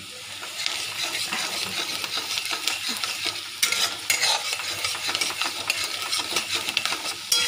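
Chopped onions sizzling as they fry in hot mustard oil in a metal wok-style pan, just turning brown, while a metal spatula stirs and scrapes them around the pan. The sizzle builds in the first half-second, and a few sharper scrapes of the spatula on the pan stand out, a couple in the middle and one near the end.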